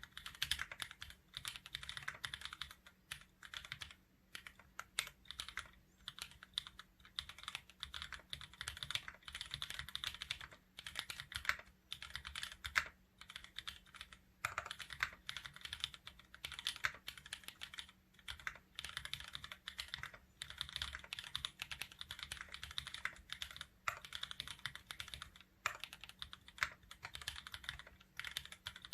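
Steady fast typing on a 60% custom mechanical keyboard with lubed Kailh burgundy switch stems in Gateron milky yellow housings, a carbon fibre plate and GMK keycaps: runs of quick key clicks broken every few seconds by short pauses.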